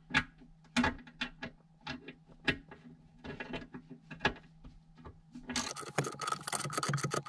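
A 3/8-inch drive ratchet clicking as it drives a self-tapping bolt, in separate, irregular clicks. About five and a half seconds in the clicking turns fast and continuous.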